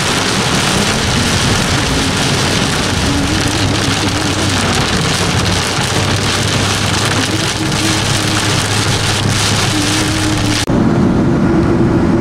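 Heavy rain hitting a moving truck, heard from inside the cab, with engine and road noise under it. Near the end the rain sound stops abruptly, leaving a steady engine drone.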